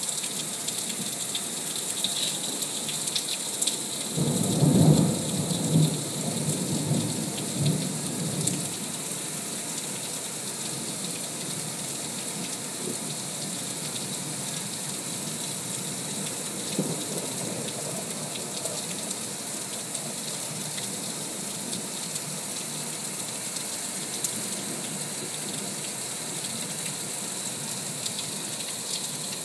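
Thunderstorm: steady rain falling, with a roll of thunder about four seconds in that rumbles low and fades out over the next few seconds.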